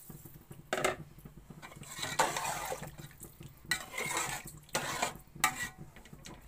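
Metal ladle stirring a watery pot of potatoes and turnips, knocking and scraping against the metal pot with about five sharp clinks spread through, over a wet sloshing background.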